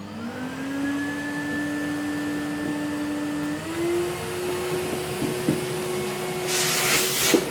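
Henry vacuum cleaner switching on: its motor whine rises as it spins up, then runs steadily, stepping slightly higher in pitch about halfway through. A brief burst of rushing hiss comes near the end, followed by a small click.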